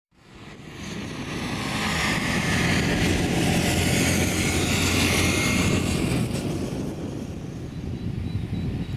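Boeing 737-800's CFM56 jet engines heard across the airfield. The rushing whine fades in over the first couple of seconds, holds loud, and eases off somewhat after about six seconds.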